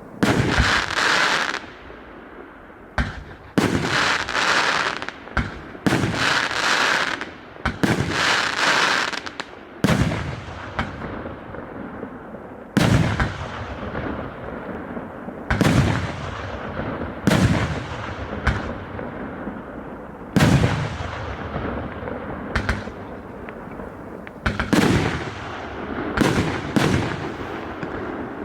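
A 188-shot firework cake firing. The first ten seconds bring long bursts with hissing tails, then single sharp shots follow every second or two, each fading off.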